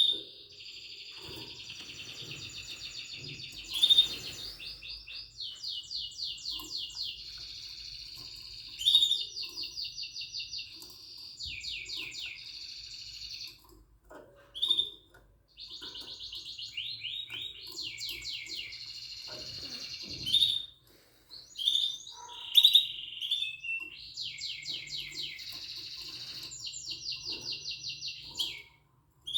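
Yellow mosaic canary singing: a long song of fast trills and rolls, each run of repeated notes lasting several seconds, with sharp chirps between runs and two short breaks in the middle.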